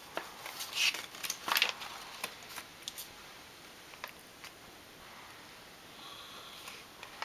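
Pages of a paperback picture book rustling and flapping as they are handled and turned: several short crinkles in the first three seconds, then a couple of light taps.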